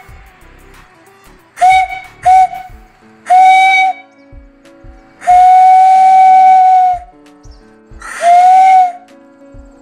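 Homemade brass steam whistle blown by steam from a small boiler, sounding in five blasts: two short toots, a longer one, a long steady blast of nearly two seconds, then one of about a second. Each blast is a single steady whistle note over a hiss of steam.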